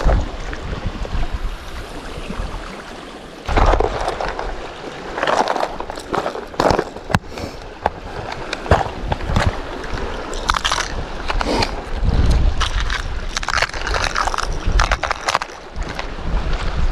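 Clicks and clatter of a clear plastic lure box being opened and its hard-bodied lures handled, in a run of short sharp noises from about three seconds in. Underneath are water lapping at rocks and wind buffeting the microphone.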